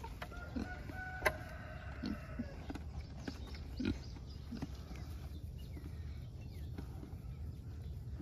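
Farm animals giving a handful of short low calls, spaced over the first five seconds, with one sharp click about a second in and a steady low rumble underneath.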